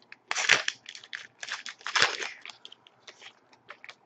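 Plastic trading-card pack wrapper being crinkled and torn open by hand, with cards rustling and sliding against each other, in a run of short irregular bursts loudest about half a second in and again about two seconds in, fading to faint rustles near the end.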